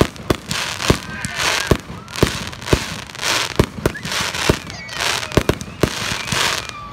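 Aerial fireworks fired in quick succession from a ground launcher, a sharp bang about twice a second, with hissing, crackling bursts between the shots.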